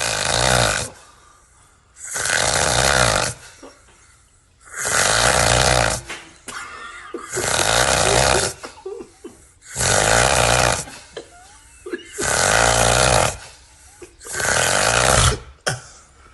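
Loud, rasping snoring from a sleeper. There are seven snores, one about every two and a half seconds, each lasting about a second, with quiet breathing gaps between them.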